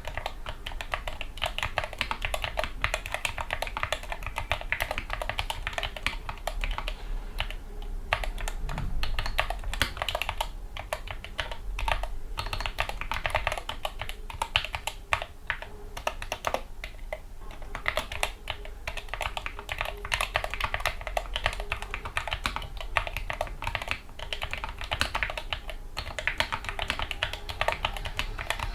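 Gamakay MK61 mechanical keyboard with lubricated Gateron Yellow optical linear switches and added foam, typed on quickly and steadily: a dense run of keystroke clacks with a few brief pauses.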